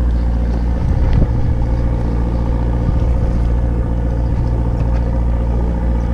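Boat engine running steadily, a low even hum. A brief knock about a second in.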